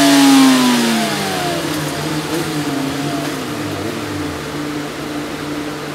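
Honda CBR600's inline-four engine, breathing through a Pipe Werx aftermarket exhaust can, with its revs falling away steadily over the first second or so as the throttle closes at the end of a dyno run. It then runs on at low revs, the pitch wavering a little.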